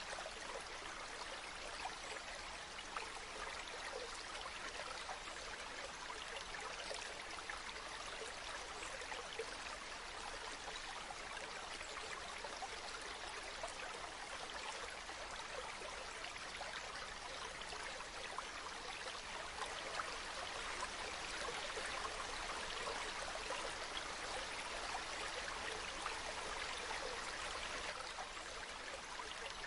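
Waterfall: a steady rush of falling and splashing water, with fine droplet splashes throughout, a little louder in the second half.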